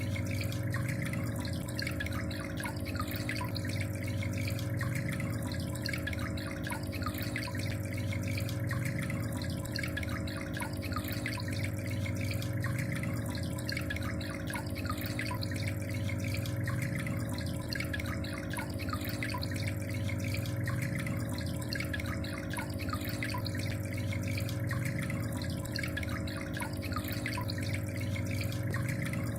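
Water trickling and splashing steadily, as from a small pump-fed aquarium waterfall, with a steady low hum underneath.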